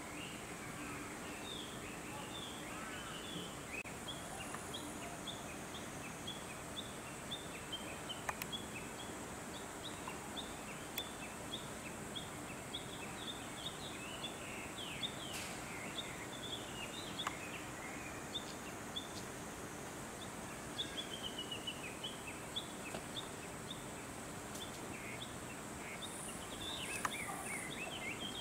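Outdoor ambience of many small birds chirping in short, scattered calls, over a faint steady high-pitched tone.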